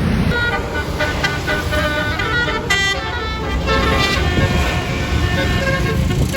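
A tour bus's basuri horn, a melodic 'telolet' horn, playing a quick tune of short notes over the low rumble of the vehicle.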